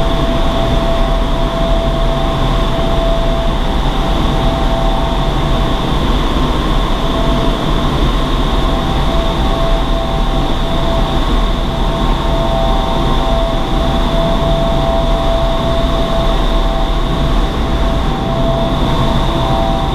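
Vertical wind tunnel running: a loud, steady rush of air blowing up through the flight chamber, with a constant whine from the tunnel's fans.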